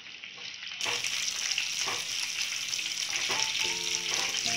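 Sliced onion sizzling in hot oil in a non-stick pan with sesame seeds, curry leaves and garlic, the sizzle growing louder about a second in. A spatula stirs it, tapping the pan a few times.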